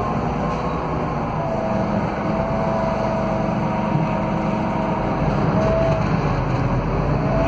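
Scania K320UA articulated bus riding, heard from inside the cabin: a steady drone from the DC09 five-cylinder diesel with the whine of the hub-reduction rear axle, its pitch drifting slightly up and down with road speed.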